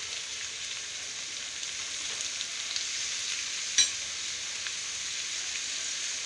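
Julienned carrots, capsicum and cabbage sizzling in hot oil in a kadhai, being stirred with a steel spoon. One sharp clink of the spoon against the pan a little under four seconds in.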